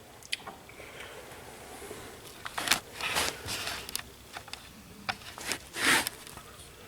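Handling noise from an M1A rifle being turned over and settled on a sandbag: a few short scrapes and rustles, the loudest about three seconds in and near the end.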